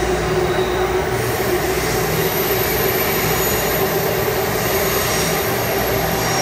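Taipei Metro (MRT) train, heard from inside the car: a steady rumble of wheels on the rails with a held whine over it.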